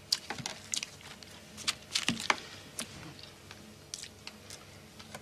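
A man eating cake with a fork from a plastic tray: scattered clicks of the fork on the plastic, with chewing and lip smacks. The sharpest clicks come in the first half-second and around two seconds in.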